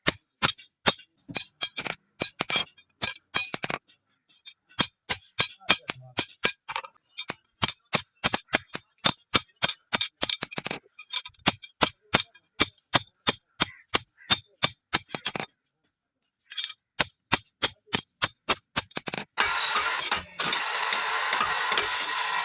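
Hammer blows on leaf-spring steel over an anvil, about three a second with short pauses, each with a bright metallic ring: the spring being hand-forged into a machete blade. Near the end the blows stop and a steady loud hiss takes over.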